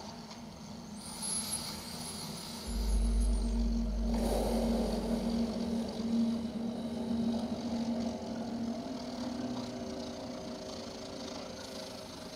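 Electronic ambient stage score: a faint high sweeping whistle early on gives way, about three seconds in, to a deep sub-bass rumble under a steady held tone and a wash of noise.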